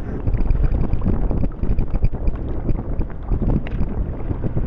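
Wind buffeting the microphone on a kayak at sea, a loud uneven rumble, with water sloshing around the hull.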